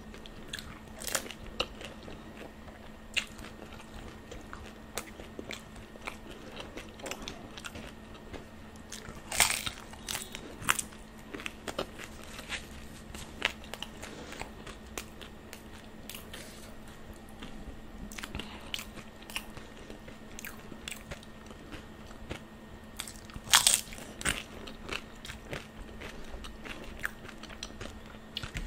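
Close-miked eating of golgappe (pani puri): crisp crunches as the thin fried shells crack in the mouth, amid wet chewing and smaller crackles, with the loudest crunches about ten seconds in and again about two-thirds through. A faint steady hum runs underneath.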